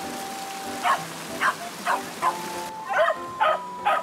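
A Welsh corgi barking in short, repeated barks, about two a second, starting about a second in. Rushing river water is heard under the barks in the first part.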